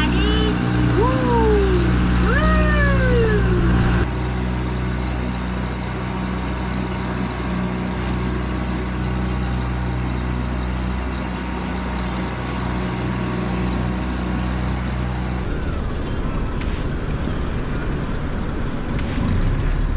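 A boat's motor running with a steady low hum while under way. A few short rising-then-falling cries sound over it in the first three seconds. The sound changes abruptly after about four seconds and again near the end, where it becomes rougher and noisier.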